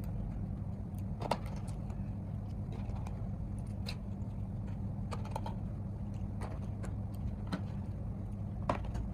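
Scattered small clicks and taps of handling and screwing the back cover back onto a MacBook Air M1, over a steady low hum.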